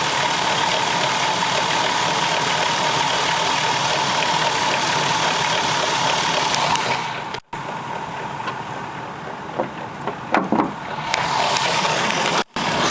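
A 2002 Dodge Caravan's 3.3-litre V6 idling with a steady high-pitched squeak from the front of the engine. The squeak comes from the alternator, which has a wiggle in it. About seven seconds in the sound turns quieter, with two brief dropouts.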